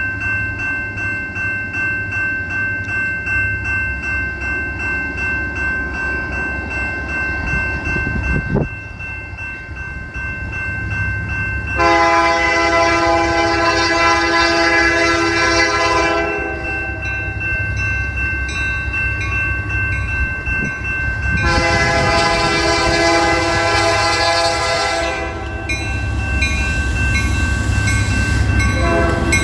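Diesel locomotive's multi-chime air horn sounding two long blasts, with a third starting right at the end, over the steady rumble of the train.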